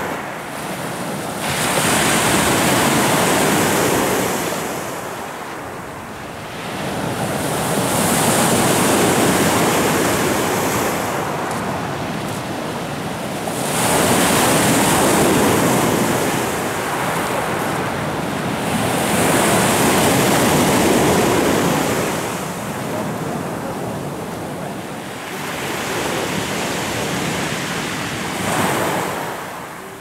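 Sea surf breaking and washing up a pebble beach, swelling and fading in slow cycles about every six seconds.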